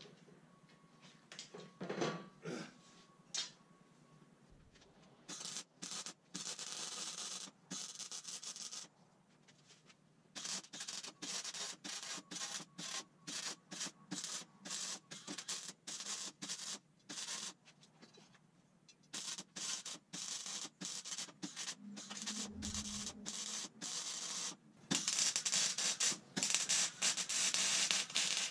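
Electric arc welding on steel tubing: a run of short welds, each a crackling hiss that starts and stops, beginning about five seconds in and loudest near the end. Before that, a few knocks of the metal pieces being handled.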